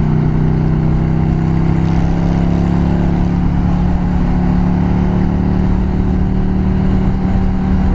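Yamaha V Star 650's air-cooled V-twin engine running steadily while the motorcycle cruises in traffic, its even drone heard over a constant rush of noise.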